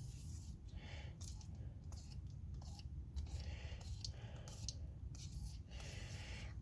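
Aerosol can of penetrating oil sprayed in a series of short hissing bursts onto rusty brake hardware to loosen it, with small clicks of handling between them.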